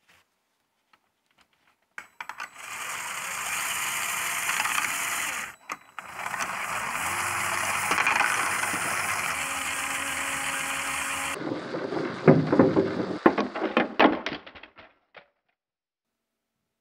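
LEGO Technic electric motors running at high power with a steady whir, spinning the robot football players, with a short break about a third of the way in. Near the end comes a burst of loud plastic clattering and knocking as the LEGO parts collide.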